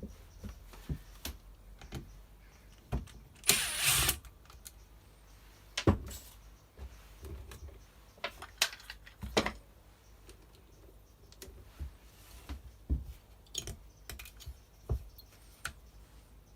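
Workshop handling noise while a strimmer's housing is being unscrewed: scattered clicks and knocks of a screwdriver, screws and plastic parts, with a louder rattle lasting about half a second near the start and a few sharp knocks later.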